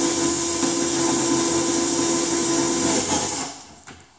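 Cordless drill with a large bit boring a starter hole through a particleboard tabletop, the motor running steadily, then stopping about three and a half seconds in.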